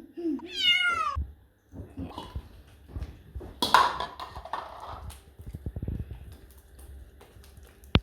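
A domestic cat meowing once, a high call falling in pitch, followed by rustling and handling noises and a sharp click near the end.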